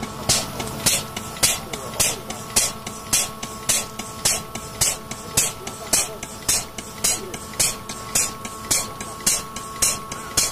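Wire rope lubrication system pumping grease under pressure into a winch line: a short burst of hiss nearly twice a second, the strokes of its air-driven pump, over a steady machinery hum.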